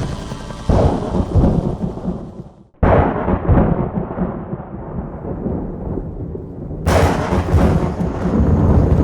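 Thunderclaps from the stock 'Dolby Digital Thunderclap' sound effect: a rumble fading out at the start, then three new claps cutting in suddenly, about a second in, about three seconds in, and about seven seconds in. Each clap is followed by a long rolling rumble, and the last one opens with a sharp crack.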